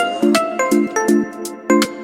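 Background music: a bright, bouncy tune of short plucked or struck notes over a steady repeating beat.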